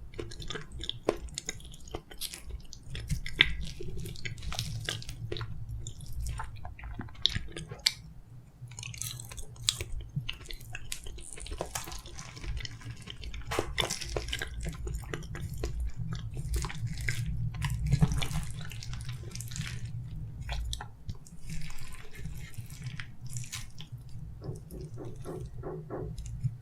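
Close-miked chewing of soft steamed kabocha: wet mouth smacks, clicks and squishes that come and go. Under them runs a steady low rumble, which the uploader puts down to construction work nearby.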